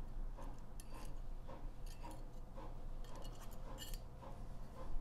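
Faint scattered metallic clicks and ticks from a Glock 26 pistol slide being handled as the firing pin is fitted into it.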